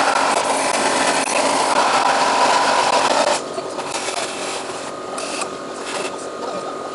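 Wet blasting cabinet spraying a water and abrasive slurry, a dense steady hiss that drops off about halfway through, leaving the machine's quieter running hiss with a couple of short spurts from the gun.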